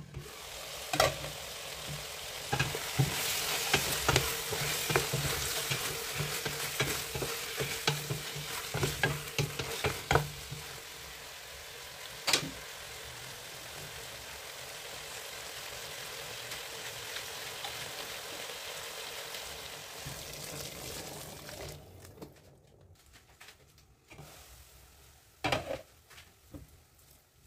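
Chicken pieces with onion and tomato sizzling in a stainless steel pot, stirred with a metal spoon that knocks against the pot now and then. The sizzle dies away about 21 seconds in, leaving a few more knocks.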